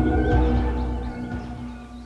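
Background music: a held chord with deep bass that fades away over the second half.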